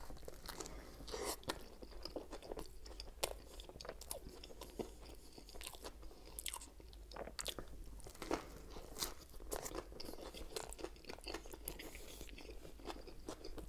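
A person chewing and biting into a Subway meatball sub, close to the microphone: a steady run of small mouth clicks and soft crunches of the bread.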